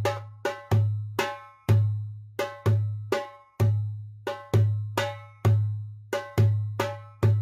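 Goblet drum (darbuka) solo: deep low dums alternating with sharp, ringing teks in a fast, steady rhythm of about three strokes a second, with a brief pause about three and a half seconds in.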